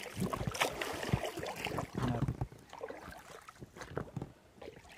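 Oars of an Explorer 300 inflatable boat dipping and splashing in the water as it is rowed, with water lapping at the hull; the splashes are irregular and grow fainter near the end.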